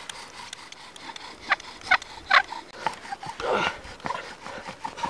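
Bow drill spinning fast: the wooden spindle is driven back and forth by the bow, rubbing and squeaking in the fireboard's socket, with a few sharper squeaks about one and a half to two and a half seconds in. The friction is heating the wood until it smokes, the first stage of making an ember.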